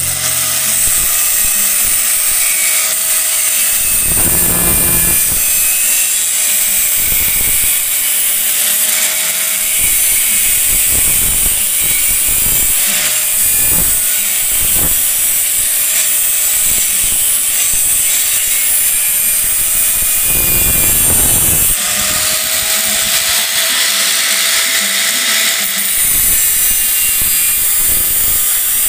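Skil angle grinder with a thin abrasive disc cutting and grinding steel motorcycle frame tubing: a steady high hiss over the motor's whine, dipping and swelling briefly a few times as the disc bites and eases off the metal.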